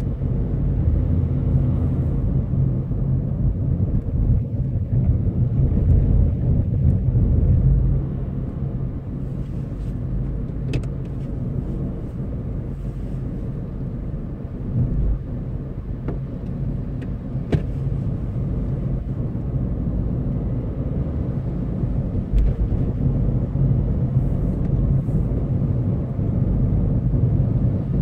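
Car cabin noise while driving: a steady low rumble of engine and tyres on the road, heard from inside the car, with a couple of faint clicks.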